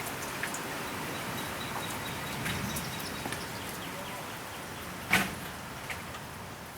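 Steady rain falling, with scattered drop ticks and one sharp knock about five seconds in.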